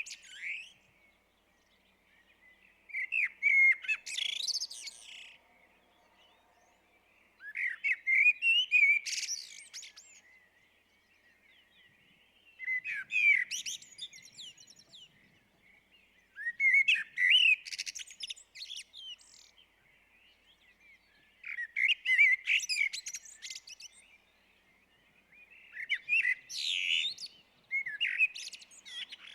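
Blackbird singing: about six phrases a few seconds apart, each a low warbled run of whistled notes that ends in a high, squeaky twitter, with short pauses between phrases.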